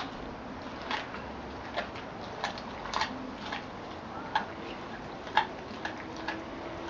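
A collie chewing a whole raw rabbit: irregular sharp crunches and clicks of teeth on meat and bone, about one or two a second.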